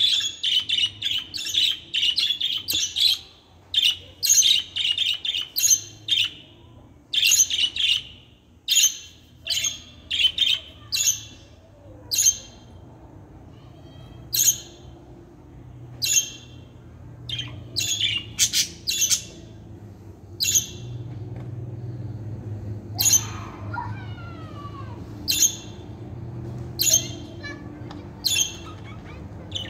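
Budgerigars chirping and squawking. Rapid strings of short, sharp calls fill the first several seconds, then single chirps come about once a second. A low, steady rumble rises in the background in the second half.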